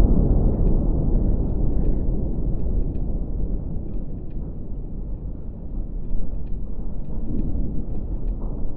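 Deep rumble of a bridge demolition blast fading away as the viaduct's concrete piers topple, swelling again briefly about six seconds in, with scattered faint cracks over it.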